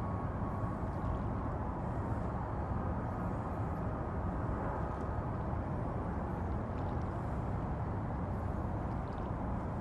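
Steady low outdoor rumble and hiss of harbour ambience, even throughout with no single sound standing out.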